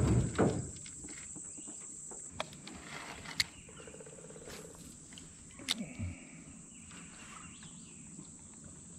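Insects buzzing in a steady high-pitched drone from the woods, stronger for the first two seconds, with two sharp clicks, at about three and a half and just under six seconds in.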